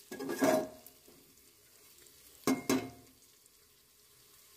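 Metal spatula stirring and scraping onions sautéing in an aluminium pressure cooker, then two sharp clanks of metal on the pot about two and a half seconds in. A faint sizzle of the frying onions goes on underneath.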